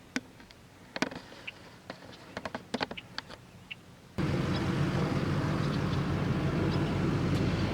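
A few faint, sharp clicks over quiet background. About four seconds in, a loud, steady engine rumble starts abruptly and runs on.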